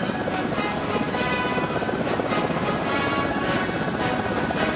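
Several military helicopters flying low overhead, their rotors beating steadily, with music playing over the rotor noise.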